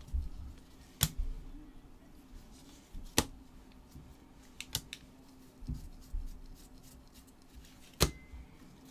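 Bowman baseball trading cards being handled and flipped one at a time by gloved hands, each card giving a sharp click or snap against the stack: five clicks at irregular intervals over a faint steady hum.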